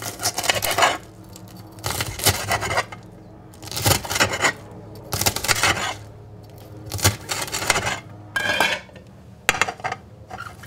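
Chef's knife slicing a red cabbage on a cutting board, in short runs of quick chopping strokes every second or two.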